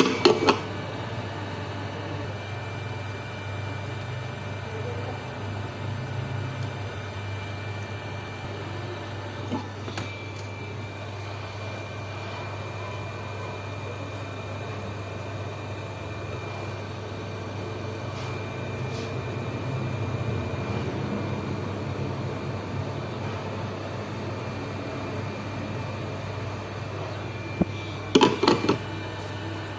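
Steady low hum with a faint high-pitched whine over it, broken by short clusters of clicks and knocks at the start and again near the end.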